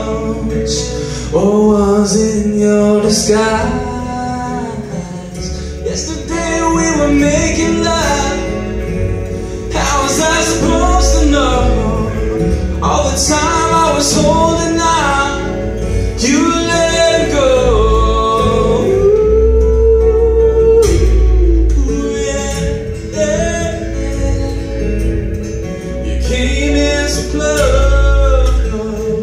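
A man singing live to his own acoustic guitar accompaniment, voice and guitar amplified through a stage microphone.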